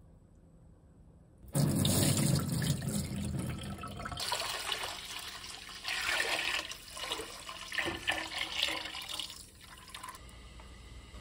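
Fermented malt water for sikhye poured in a thick stream into a large stainless steel pot, gushing and splashing. It starts about a second and a half in and stops shortly before the end.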